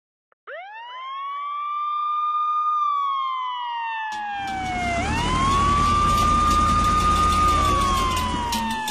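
Fire engine siren winding up about half a second in and wailing slowly. It holds a high pitch, slides down, rises again about five seconds in and slides down once more near the end. A low rumble joins under it from about four seconds in, with a few clicks near the end.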